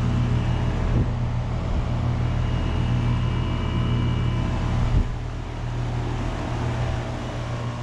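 2006 Amana ASX16 air conditioner condenser running, its Copeland scroll compressor giving a steady low hum under the even rush of the condenser fan. A brief knock about five seconds in, after which it is a little quieter.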